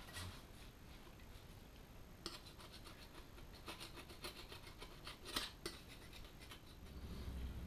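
Faint scraping and rubbing with a few light clicks as a gloved hand cleans a metal mounting face on a Land Rover TD5 engine. A low rumble comes in near the end.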